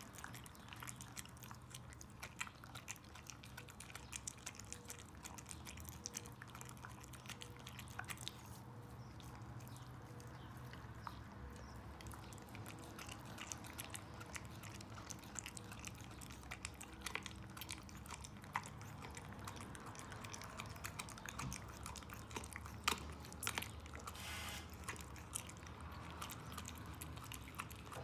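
Border Collie chewing and gnawing a raw meaty bone: irregular crunches and clicks of teeth on bone and meat, a little busier near the end.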